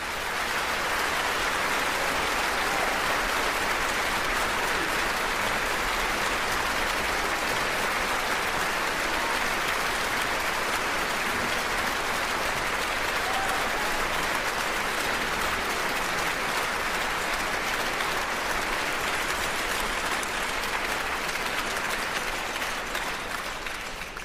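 Theatre audience applauding, a dense, steady clapping that dies down near the end.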